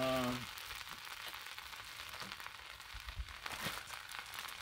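Slice of Texas toast sizzling steadily on a hot Blackstone flat-top griddle, a soft even hiss.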